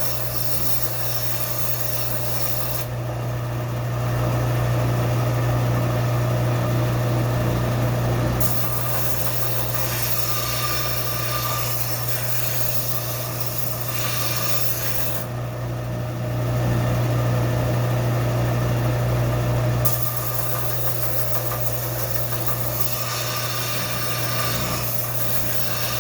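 Tabletop sander running with a steady motor hum while a rusty steel adze blade is ground on its 120-grit sandpaper, a scraping rasp over the hum. Twice, for about five seconds each, the sound turns louder and duller.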